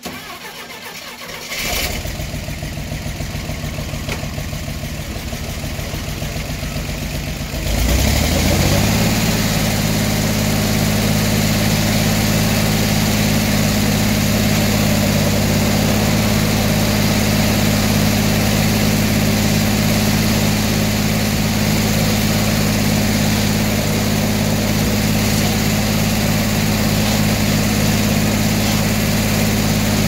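The circular sawmill's power unit engine cranks over for several seconds, catches about eight seconds in with a brief rise in revs, then runs steadily.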